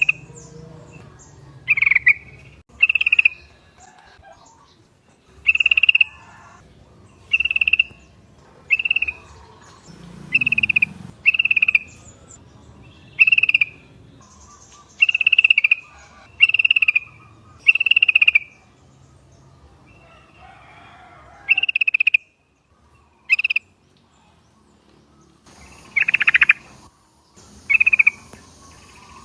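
Yellow-vented bulbuls (trucukan) calling: short, bright notes repeated every second or so, with a few quiet gaps. Near the end come two longer, louder notes.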